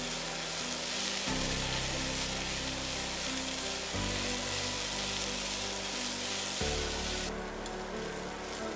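Sliced onion and red bell pepper sizzling in vegetable oil in a frying pan, with background music whose chords change every few seconds. The sizzle drops away about seven seconds in, leaving the music.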